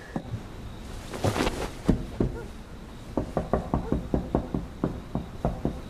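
Knuckles rapping on a wallpapered interior wall. A couple of single knocks come first, then a quick, even run of knocks, about three or four a second, from about halfway through.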